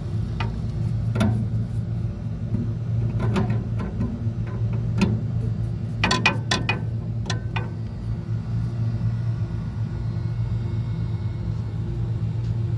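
Steady low machinery hum with a series of sharp metal clicks and knocks over the first half, densest about six seconds in, from tools working on the new compressor's mounting; after about eight seconds only the hum is left.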